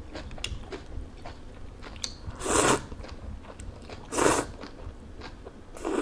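A person eating noodles: chewing with small mouth clicks, and three short, loud slurps about two and a half, four and six seconds in.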